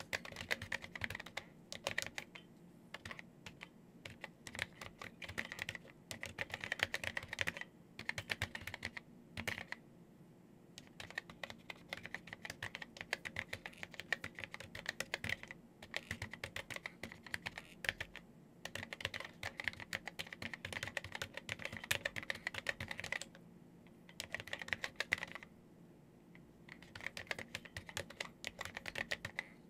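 Typing on an Epson HC-20 keyboard with SMK linear key switches: fast runs of key clicks in bursts of a few seconds, with short pauses between them, over a faint steady hum.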